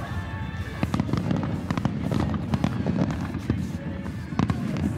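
Aerial fireworks shells bursting overhead, with dense rapid crackling over low booming rumble.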